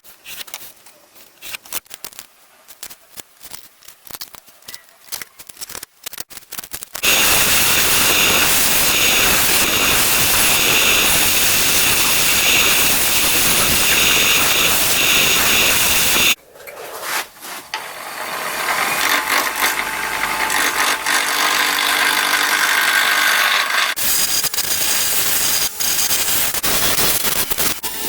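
Woodworking power tools cutting butternut wood. Scattered scrapes and clicks come first, then a loud steady cutting noise that starts suddenly about seven seconds in and stops abruptly about nine seconds later. A machine then runs up with more cutting noise, and another stretch of dense cutting noise fills the last few seconds.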